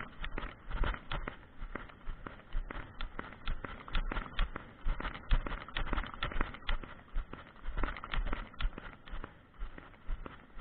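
Hoofbeats of a ridden Egyptian mare moving steadily along, a regular run of thuds several times a second.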